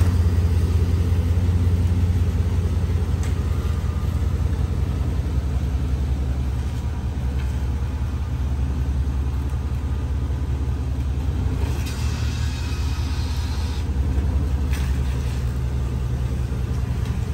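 Chevrolet Silverado pickup's engine idling steadily. A brief hiss rises over it about twelve seconds in.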